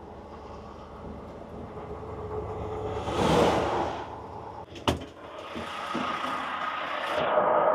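Tractor-trailer's diesel engine running, heard from inside the cab while driving, getting louder over the first few seconds. A short burst of hiss comes about three seconds in, and a sharp click just before five seconds.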